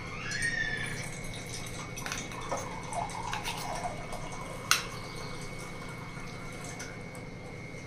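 Steel spoon scooping soft curd cream from a steel bowl, with light scrapes and taps of metal on metal and one sharp clink near the middle.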